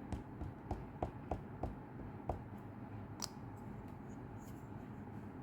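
Light taps and clicks of handling a rubber stamp and ink pad on a tabletop: a quick run of about seven small taps, then one sharper click about three seconds in.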